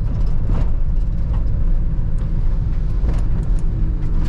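Motor vehicle running, a steady low rumble with a few faint knocks.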